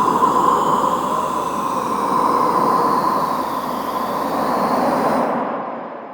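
A horror-ambience sound effect: a steady rumbling noise with a held tone and high metallic squeals weaving up and down. Its top end cuts off about five seconds in and it fades away.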